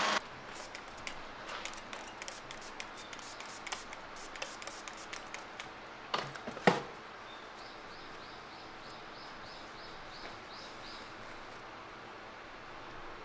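Light clicks and taps as a freshly ground kitchen knife is handled over the workbench, with two sharper knocks about six seconds in. After them comes a short run of faint high chirps, about three a second, over a low steady hum.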